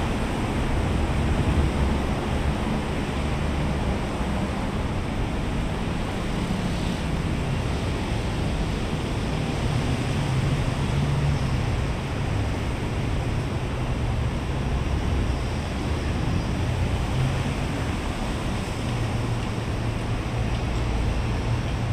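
Steady roar of multi-lane road traffic: tyre and engine noise of cars and buses passing through a junction, with a low engine rumble that swells now and then as heavier vehicles go by.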